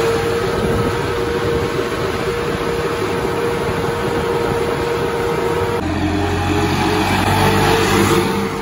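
Swaraj 969 FE tractor's three-cylinder diesel engine running under way on the road, heard from the driver's seat with a steady whine over the engine noise. About six seconds in the sound shifts to a deeper, heavier engine note.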